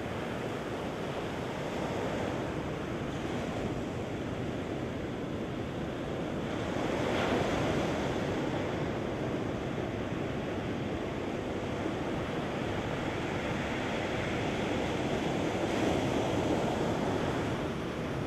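Small waves breaking and washing up a sandy beach: a continuous rush of surf that swells louder about seven seconds in and again near the end.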